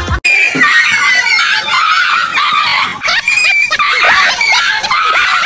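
A frightened dog yelping and screaming in a shrill, wavering, frantic run of cries as it flees a fake tiger. The cries start abruptly just after a cut.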